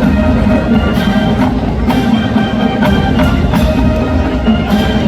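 Collegiate marching band playing a pop tune: brass and winds over a steady drum beat of about two hits a second.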